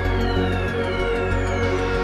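Electronic background music, with a steady low bass and high tones that slowly fall in pitch.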